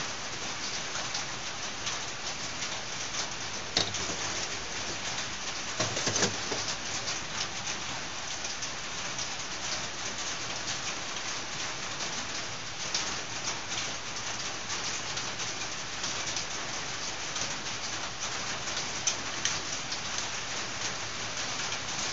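Steady hiss, with a few light clicks of small carburetor parts being handled as a cover is fitted onto a Honda XR500 carburetor, the clearest about four and six seconds in.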